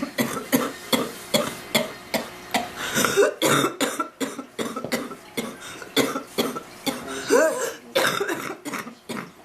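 A woman's coughing fit: a long run of harsh coughs, two or three a second, with a strained, voiced breath between coughs about seven seconds in, easing off near the end. It is the persistent cough of a bad illness, the kind that has kept her awake all night.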